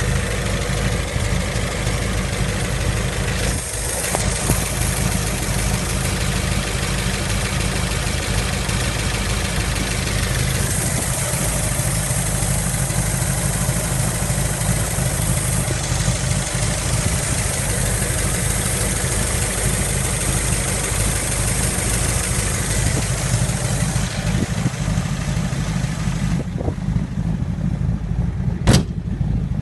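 Big-block 396 V8 of a 1969 Camaro SS idling steadily, with a deep, even low rumble. A single sharp click near the end.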